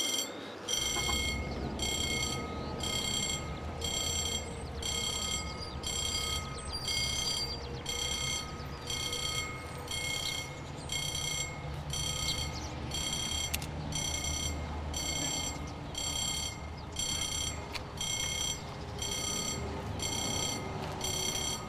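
Railway level-crossing warning alarm sounding in regular ringing pulses about once a second, the signal that a train is coming, over a steady low rumble.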